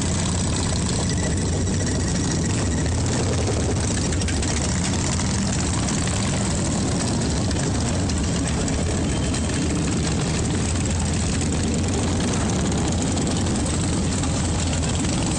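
Several Harley-Davidson V-twin motorcycle engines running at low speed as the bikes roll slowly past one after another, making a steady, dense low drone.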